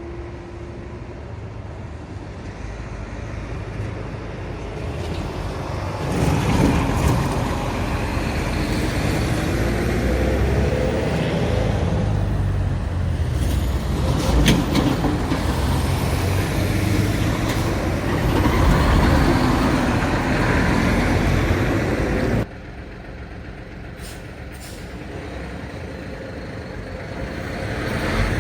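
Road traffic, with heavy trucks and cars passing close by. The rumble builds over the first few seconds and stays loud through the middle. It drops off suddenly about two-thirds of the way through, then swells again as another vehicle approaches near the end.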